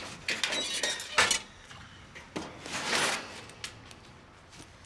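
Clinks and rattles of small hard objects being handled, with the sharpest click about a second in, then a few scattered knocks that thin out.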